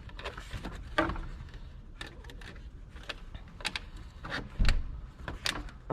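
Scattered metal clicks and knocks of hand tools working the lower radiator hose clamp and hose off a radiator, with one heavier thump about four and a half seconds in.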